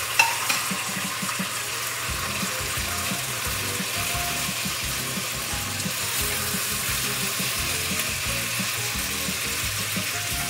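Sliced bell peppers and onions frying in sunflower oil in a stainless steel pan, a steady sizzle as they are turned with a spatula. A sharp clack just at the start.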